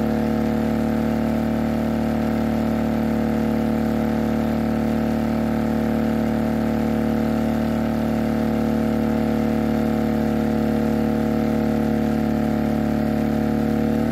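Heomaito HMT3500iD inverter generator's engine running steadily at high speed under a heavy load of two space heaters, about 3.4 kW.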